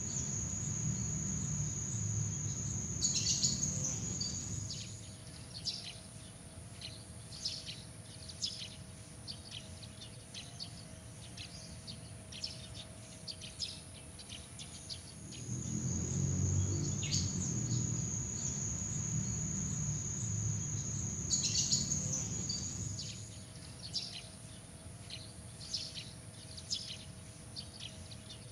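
Nature ambience: short bird chirps scattered throughout, with a steady high insect trill and a low rumble at the start and again through the middle stretch, under a faint steady hum.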